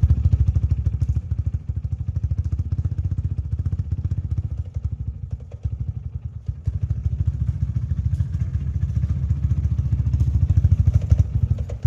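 TVS Apache RTR 180's single-cylinder four-stroke engine idling steadily with an even, rapid exhaust beat, freshly serviced with new engine oil. It runs a little softer around the middle and picks up again towards the end.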